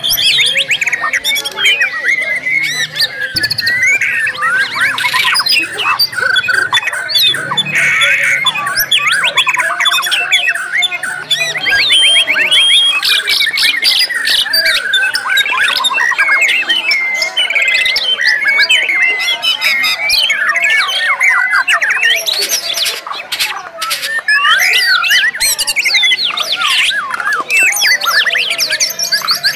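White-rumped shamas (murai batu) singing without pause, overlapping strings of rapid trills, rising and falling whistles and sharp repeated notes, including phrases copied from other birds.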